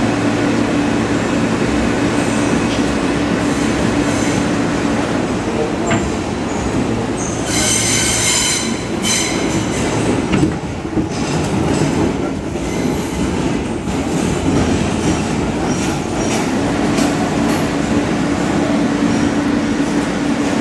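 R160 subway car running at speed through a tunnel: a steady rumble of wheels on rail with a steady motor hum. About eight seconds in, the wheels squeal high-pitched for a couple of seconds.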